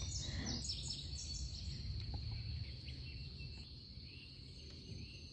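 Insects keeping up a steady, high, unbroken trill, with a few short bird chirps in the first second or so, over a low rumble that slowly fades.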